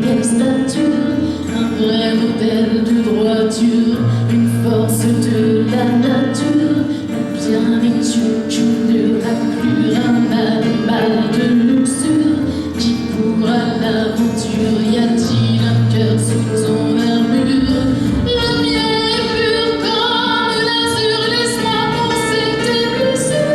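A woman singing a French song over an instrumental backing track, with long held notes; the accompaniment grows fuller and brighter in the last few seconds.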